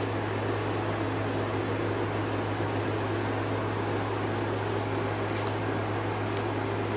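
Steady low hum with an even hiss: constant room background noise. A few faint, short high clicks about five seconds in.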